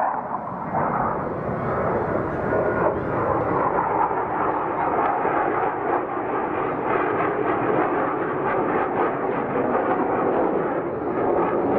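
Jet aircraft engine noise: a steady, loud rush with a rapid crackle running through it.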